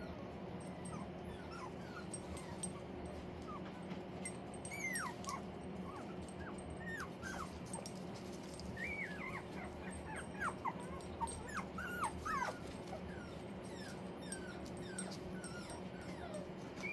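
Four-week-old puppies whimpering and yipping in short, high-pitched, falling cries, scattered throughout and most frequent around the middle, over a steady low hum.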